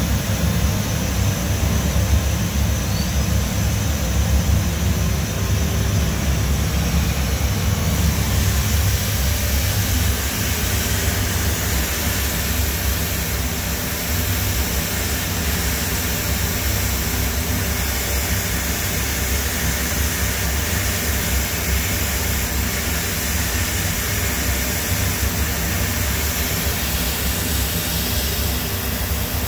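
Hwacheon G1 graphite CNC machining centre running, with a small end mill on its high-speed spindle cutting a graphite block: a steady mechanical noise over a low hum. More hiss comes in about eight seconds in.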